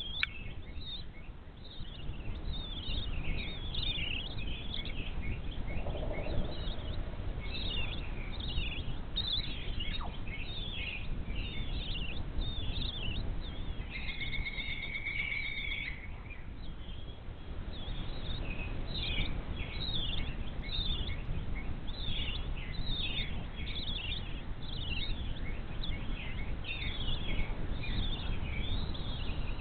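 Birds chirping in quick, dense bursts throughout, with one steady trill about halfway through, over a constant low rumble.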